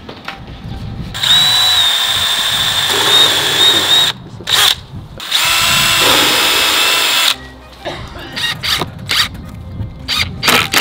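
A handheld power tool running with a steady high whine in two long runs of about three and two seconds, with a short blip between them and several brief bursts near the end.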